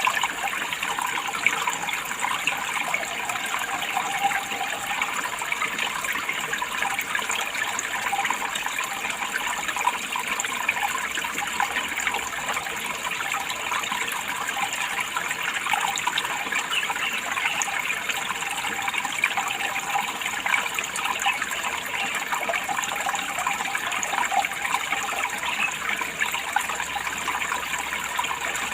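Running water in a steady, unbroken flow with a fine splashing texture.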